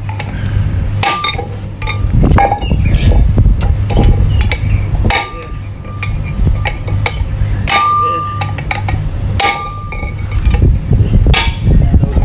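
Steel gearbox parts and hand tools clinking and knocking together at irregular intervals, several strikes leaving a short metallic ring, over a steady low hum.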